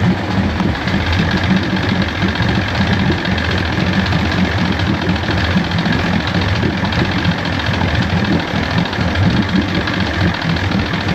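A 1973 Johnson 65 hp two-stroke outboard running steadily at an even speed, with no revving.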